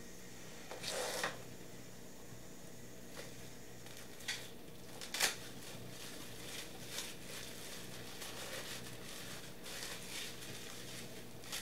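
Soft rustles, pats and light scrapes of hands filling and rolling a flour tortilla burrito on a stone countertop, a few brief louder touches about a second, four and five seconds in. A faint steady hum lies underneath.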